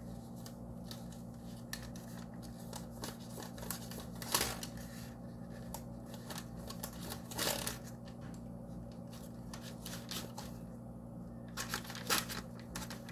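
Kitchen knife slashing a raw bread loaf on a parchment-lined baking tray: soft scraping and crinkling of the paper with scattered light taps, the sharpest about four and seven seconds in and a cluster near the end, over a steady low hum.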